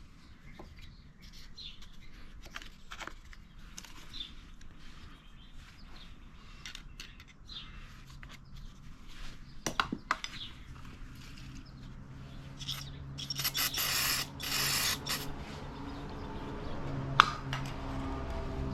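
Aerosol contact cleaner spraying in a couple of long hissing sprays about two-thirds of the way in, after a run of small clicks and taps. A low steady hum comes in near the end.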